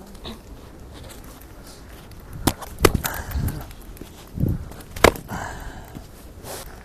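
Hatchet chopping firewood: three sharp cracks of the blade biting into the wood, with duller knocks between them.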